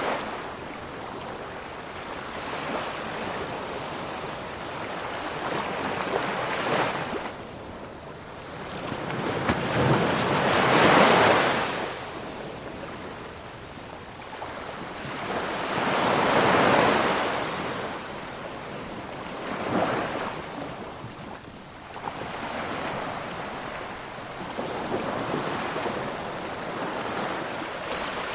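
Ocean waves rolling in and breaking on the shore, a steady wash that swells with each wave every five or six seconds, the biggest two near the middle.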